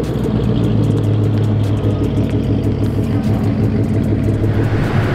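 2014 Ford Mustang GT's 5.0-litre V8 running steadily at low revs, a low exhaust hum, as the car rolls slowly backwards.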